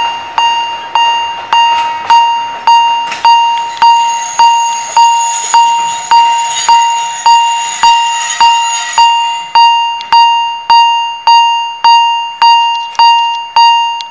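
Railway level-crossing warning bell ringing at a steady pace of nearly two dings a second, each a bright ring that dies away quickly. A fainter high whine sounds under it for a few seconds in the middle.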